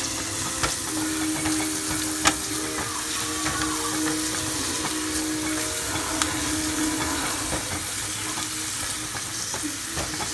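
Onion and garlic sautéing in oil in a stainless steel skillet: a steady sizzle, with a silicone spoon stirring through it and a few sharp taps against the pan, the loudest about two seconds in. A steady hum runs underneath.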